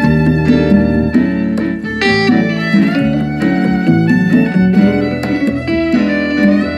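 Live band music played on stage: a fiddle bowing a melody over electric guitar, keyboard and congas, with a steady beat.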